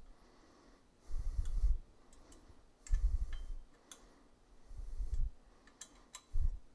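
Metal clicks and dull knocks of a 6 mm Allen wrench turning the side-guard bracket bolts on a motorcycle frame. They come in four short bouts about a second and a half apart.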